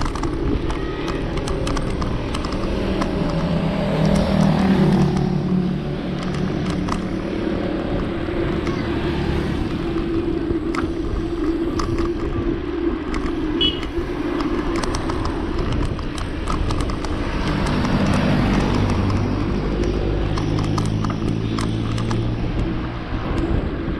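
Road traffic: motor vehicles passing with a steady engine hum that swells about four seconds in and again from about seventeen seconds.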